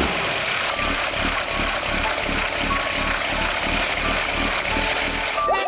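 Tractor engine running steadily with an even low pulse of about three beats a second, cutting off suddenly just before the end.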